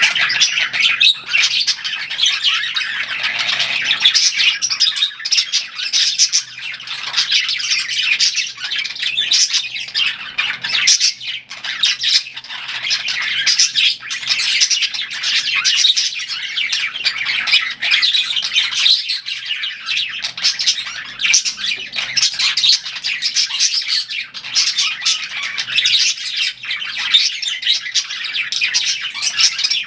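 Several budgerigars chirping and chattering continuously, a dense overlapping stream of quick high chirps and warbles.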